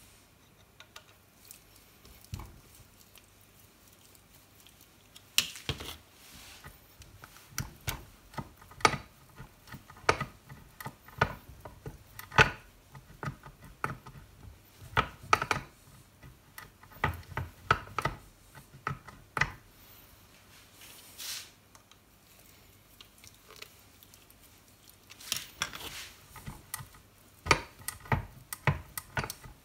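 Irregular metallic clicks, clinks and knocks of steel parts and tools being handled and fitted on a Boxford lathe headstock during reassembly, some with a brief ring. They are sparse at first and come thick and fast from about five seconds in.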